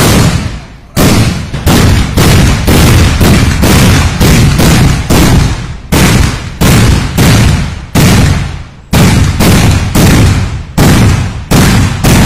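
Kathina (kadina vedi), the small gunpowder-packed iron cylinders of Kerala temple festivals, going off one after another in a long string of loud bangs, about two a second, each echoing briefly.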